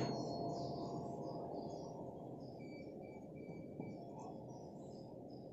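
A struck 384 Hz tuning fork ringing faintly and fading away, then a light tap about four seconds in as its stem is set on the sonometer's hollow wooden box.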